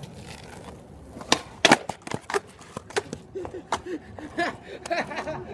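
Skateboard wheels rolling on rough asphalt, then two sharp clacks of the deck striking the ground about a second and a half in, as a trick is attempted, followed by lighter knocks as the board rolls on.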